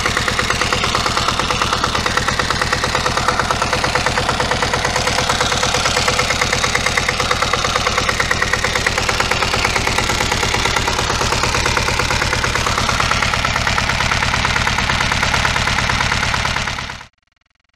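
Sommer diesel motorcycle's single-cylinder air-cooled Hatz diesel engine idling with a rapid, even beat. It cuts off abruptly near the end.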